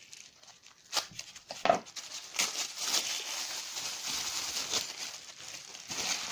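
Packing material rustling and crinkling as a wrapped item is unwrapped, with a couple of sharp handling clicks in the first two seconds.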